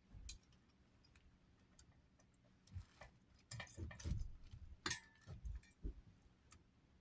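Faint clicks and clinks of small metal parts and wires being handled while wiring a ceiling fan, a cluster of them in the second half with one short metallic ring about five seconds in.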